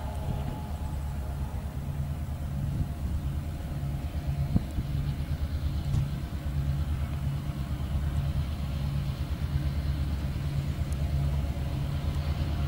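A pair of T-class diesel-electric locomotives running under power as they approach. Their engines make a steady low rumble with a throbbing beat, growing a little louder near the end.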